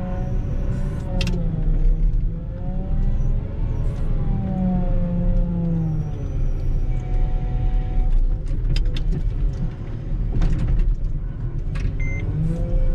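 Volvo L60H wheel loader's diesel engine running while plowing snow, its pitch rising and falling as the revs change, with a few sharp knocks and rattles along the way.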